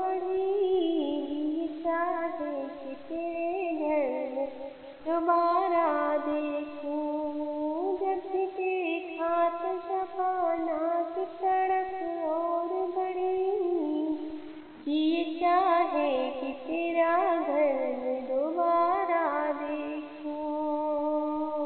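A woman's solo voice singing an Urdu naat, drawing out long wavering notes that slide from pitch to pitch.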